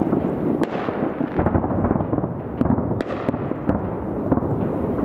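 Fireworks display heard from about two kilometres away: a continuous rumble of overlapping aerial shell bursts, with a few sharper cracks standing out, most of them in the second half.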